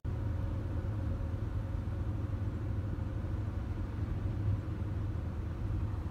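Steady low rumble of a motor vehicle's engine running, with no change in pitch or level.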